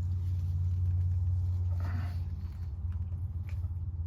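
A steady low hum throughout, with a few faint clicks and taps from handling the PEX pipe and crimp fitting.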